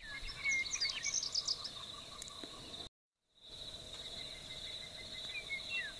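Small birds chirping in short, scattered calls over a steady high insect trill. The sound cuts out briefly about halfway through, then the trill and chirps carry on.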